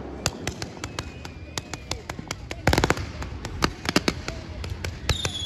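Aerial fireworks firing: an irregular string of sharp pops and cracks as comets launch and burst, with a dense crackle about two and a half seconds in. Near the end a high firework whistle starts and falls slightly in pitch.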